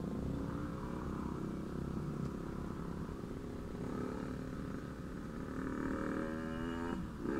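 Motorcycle engine running in traffic as the bike picks up speed, its hum rising a little in pitch partway through, over a steady low road rumble.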